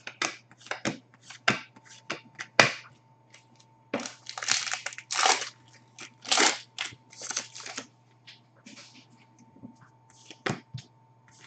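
Trading-card pack wrapper being torn open and crinkled in two rough stretches about four and six seconds in, between quick clicks and snaps of cards being handled and flicked.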